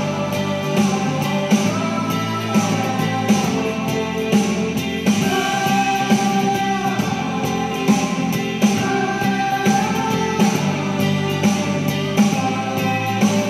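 Instrumental background music with a melody and a steady beat.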